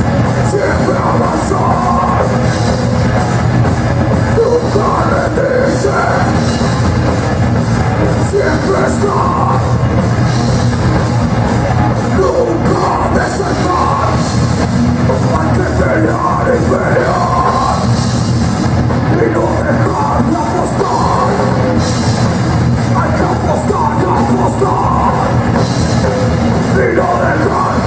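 Heavy metal band playing live: electric guitar, bass guitar and drum kit, with a singer's vocals over them.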